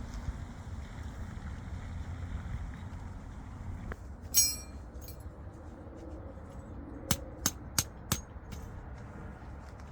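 One sharp clink with a brief ringing tail, then a few seconds later four quick clicks about a third of a second apart, over a steady low rumble.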